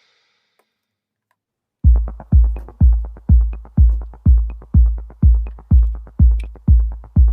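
Electronic background music: near silence for about two seconds, then a steady, heavy electronic bass-drum beat at about two beats a second.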